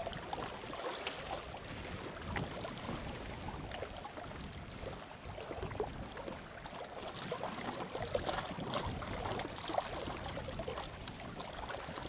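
Small waves lapping and splashing against rocks at the water's edge, a soft uneven wash with little splashes.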